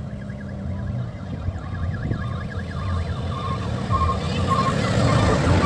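Decorated odong-odong tourist mini-buses driving up, their engine rumble growing steadily louder as they approach. A warbling, siren-like electronic sound is heard over them at first, followed by a looping tune of short high beeping notes from their loudspeakers.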